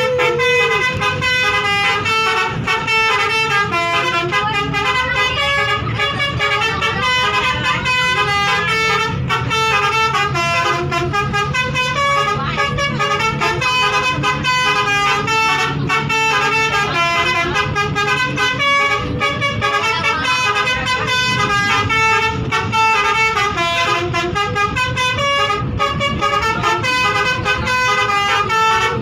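A bus's Basuri musical horn playing a continuous tune of quick stepped notes, with several horn tones sounding together. A low steady rumble runs underneath.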